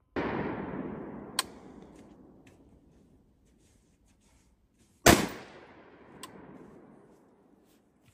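Two rifle shots about five seconds apart, the second from an AR-style semi-automatic rifle, each followed by a long echoing tail that fades over two to three seconds. A short sharp tick follows about a second after each shot.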